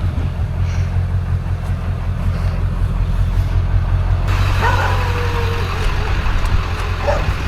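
Pickup truck engine and road rumble, low and steady. About four seconds in, a brighter hiss rises over it, with a few short wavering tones.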